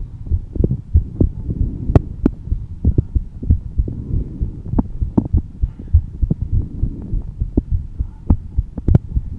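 A woman's heartbeat, a slow, calm, steady run of low thumps, with a few sharp clicks about two seconds in and near the end.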